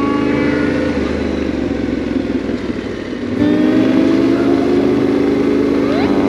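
Motorcycle engine running under way on a dirt track, with a louder, steadier engine note from about halfway and a rising rev near the end.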